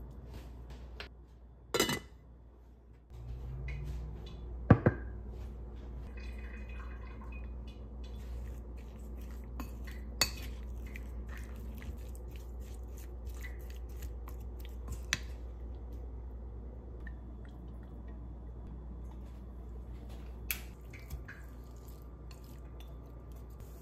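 Kitchen handling sounds: a wooden spoon stirring in a steel pot and working chicken pieces in a ceramic bowl, with scattered sharp knocks and clinks over a low steady hum.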